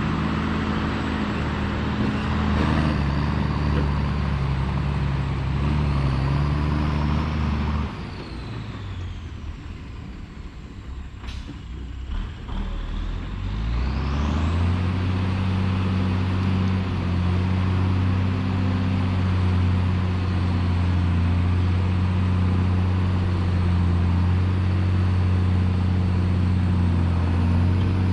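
Heavy diesel dump truck engine running steadily, then dropping to a quieter idle about eight seconds in. A short sharp hiss or click comes about three seconds later, then the engine revs up and settles back into a steady run.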